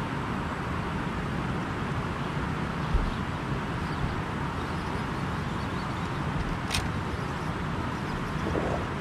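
A boat's engine running steadily under way, with a dull thump about three seconds in and a short sharp click near the end.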